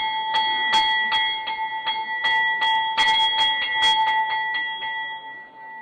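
Hanging brass temple bell rung by hand with quick, even strikes, about three a second, sounding the start of the evening aarti. The strikes stop near the end and the ring fades away.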